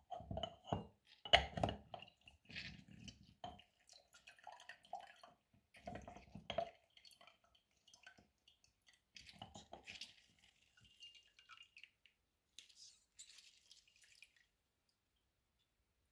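Handheld lever lemon press squeezing lemon halves: juice squishing out and dripping into a glass, with irregular knocks of the press. The sounds are strongest in the first few seconds and thin out, fading shortly before the end.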